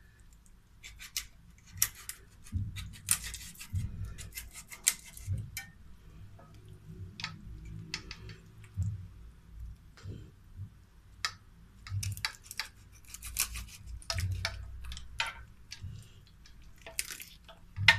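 Raw skinned rabbit being cut into pieces on a plate: irregular sharp clicks and crackles as joints are cut and pulled apart, with soft low thumps from the carcass handled against the plate.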